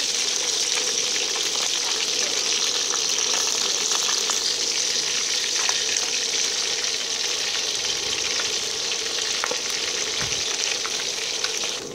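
Whole fish frying in hot oil in a metal wok: a steady sizzle, with light clicks and scrapes of a metal spatula against the pan as the fish are moved.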